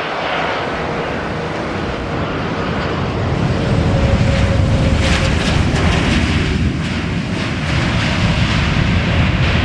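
Jet engines of an Airbus A330 airliner during touchdown and rollout on the runway: a loud, steady rushing rumble that grows louder about three to four seconds in.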